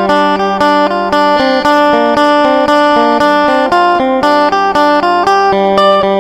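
Background music: a plucked string instrument playing quick, evenly repeated notes over a steady low drone.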